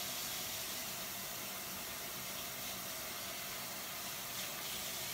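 Kitchen sink faucet running a steady stream of water while hands are washed under it.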